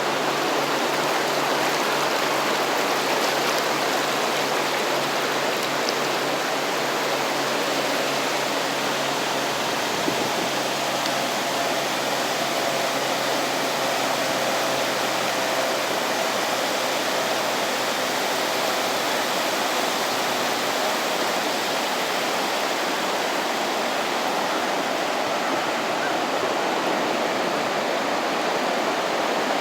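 Sea surf washing onto a beach: a steady, even rush of breaking waves, with a faint low hum beneath it that stops about two-thirds of the way through.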